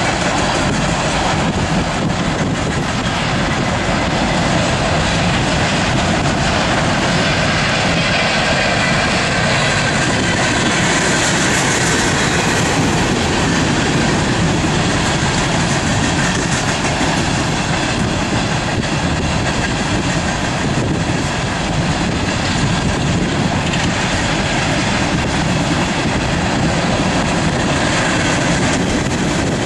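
An empty BNSF coal train's cars rolling past at close range, steel wheels running on the rails in a steady, loud rush.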